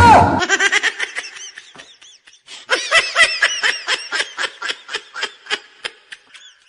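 High-pitched laughter in rapid 'ha-ha-ha' pulses, starting abruptly and loud, breaking off briefly about two seconds in, then a second run of laughs that slows and fades out.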